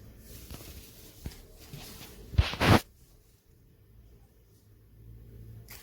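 Two quick, loud rasps close together about two and a half seconds in, zip-like, amid a few faint clicks of handling.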